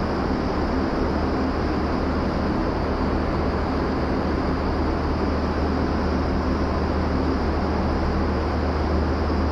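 Vertical wind tunnel running with skydivers airborne: a steady rush of air from the tunnel's fans, with a low hum underneath.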